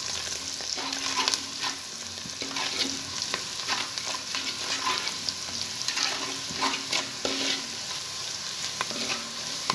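Sliced onions, green chillies and mint frying in hot ghee and oil, sizzling steadily, while a spatula stirs them with repeated scrapes and clicks against the metal pot.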